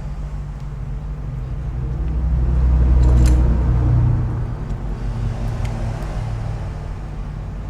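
A low engine rumble that swells about two to four seconds in and then fades back, like a motor vehicle passing, with a few faint clicks.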